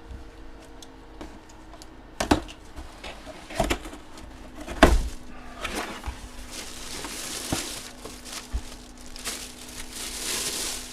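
Trading cards and their packaging being handled at close range. A few sharp clicks and knocks come first, then a longer stretch of rustling, crinkling and sliding.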